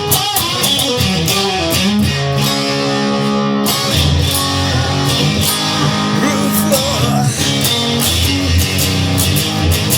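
Instrumental break in a rock song, led by guitar, with a steady beat.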